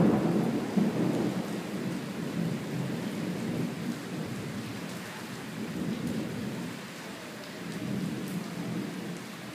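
Thunder rumbling away from a loud clap at the very start, swelling up again twice, over steady rain.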